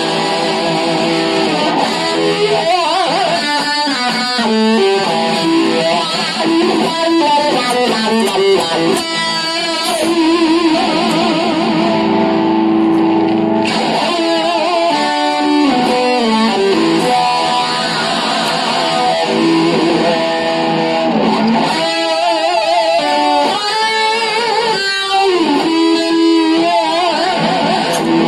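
Electric guitar played through effects pedals: a melodic lead line of single notes, with wavering vibrato on held notes in places.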